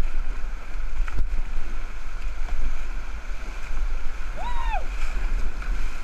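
Whitewater rapids rushing around an inflatable raft, with wind buffeting the microphone. About four and a half seconds in a rafter lets out one short shout.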